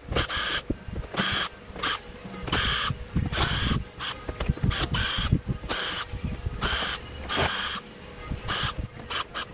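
Small electric screwdriver whirring in short repeated bursts, about a dozen of them, each well under a second, as screws are driven out. Low knocks and handling clunks fall between the bursts.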